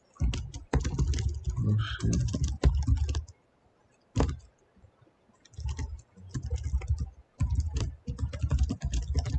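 Computer keyboard typing in quick runs of keystrokes, with a pause of about two seconds midway broken by a single keystroke.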